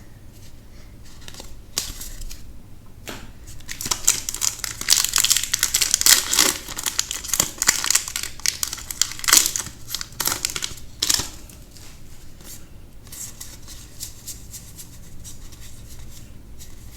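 Crinkling and rustling of a foil booster-pack wrapper and trading cards being handled, thickest through the middle of the stretch and thinning to scattered small clicks and rustles.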